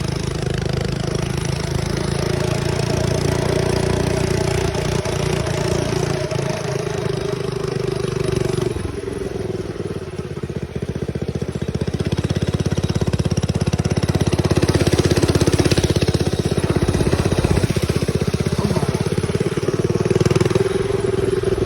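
Mini bike's small engine running under way. It eases off about nine seconds in, then picks up and runs louder again.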